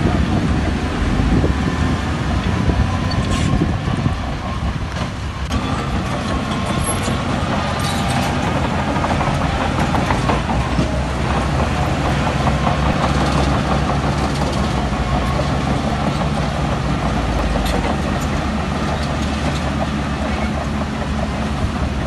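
Heavy diesel earthmoving machinery running steadily, with a few sharp metallic clanks.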